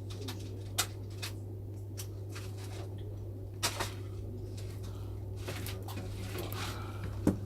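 A few light clicks and taps of microsoldering tools being handled at the bench, scattered over a steady low hum.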